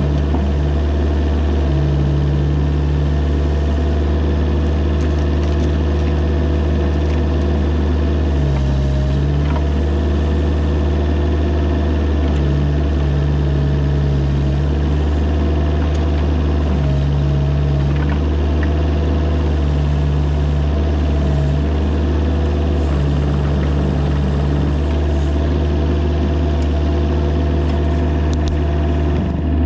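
Mini excavator engine running steadily, with a low hum that keeps cutting in and out every few seconds.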